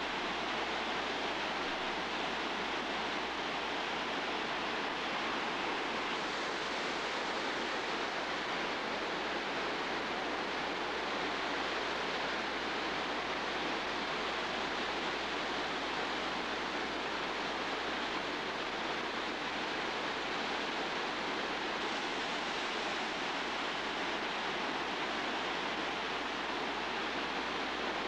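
Waterfall pouring over smooth rock: a steady rush of falling water with no breaks or distinct splashes.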